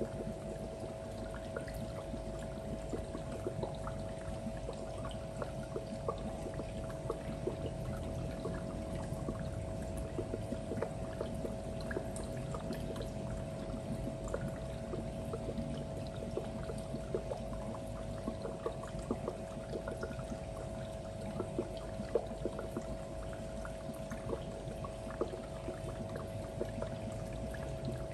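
Aquarium filter running: water trickling and splashing steadily, with a steady hum and many small ticks throughout.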